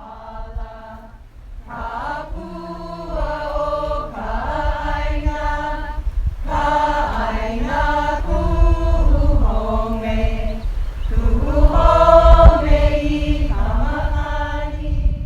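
Hawaiian chant sung by a group of voices together, with long held notes that step up and down in pitch and grow louder toward the end, over a low rumble.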